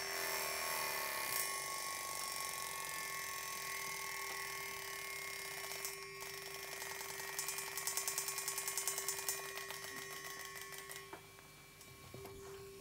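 Small bell cymbal ringing with a sustained metallic buzz, set vibrating by a handheld battery-powered device held against it. The tone flutters at about six pulses a second in the middle, then grows quieter near the end.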